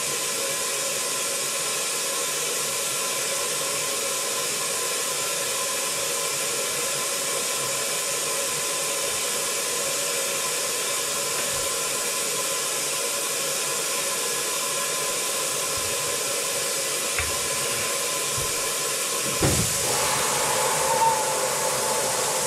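Steady hiss of rushing compressed air with a faint whistle in it, unbroken, with a short low thump about nineteen seconds in after which the hiss grows a little louder.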